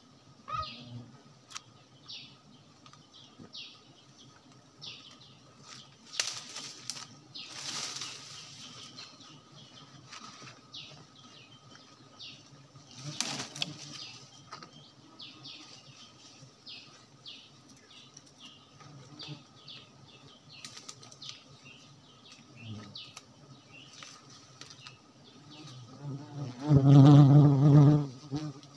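Wild honeybees buzzing around their exposed comb, with leaves and branches rustling twice in the first half. Near the end a bee passes close to the microphone, and its buzz is the loudest sound.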